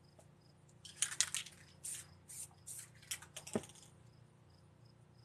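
Gloved hand rubbing and pressing on a spray-paint painting: a run of short rustling, hissy scrapes for about three seconds, with a sharp knock near the end. Then a cricket chirps faintly and steadily.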